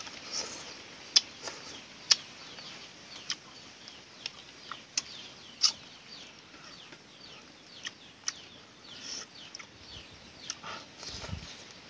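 Eating with chopsticks from a ceramic bowl: irregular sharp clicks and wet smacks from the chopsticks and chewing, with faint bird chirps in the background.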